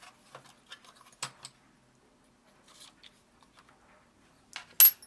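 Small metal drill bits clicking and rattling as they are slotted into a plastic drill bit case, with one sharp metallic clink and brief ring near the end.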